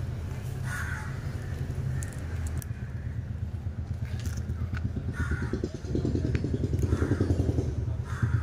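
A small engine running steadily with a rapid pulse, growing louder about six seconds in. About six short bird calls sound over it, roughly one a second.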